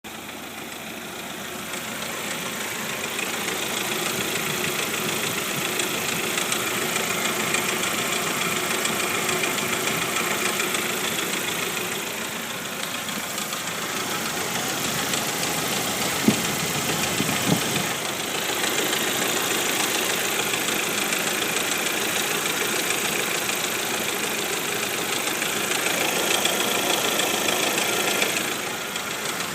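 1999 Jeep TJ engine running steadily with a knock that shows up only once the engine is warm and does not get louder when driving. Two sharp clicks about a second apart a little past the middle.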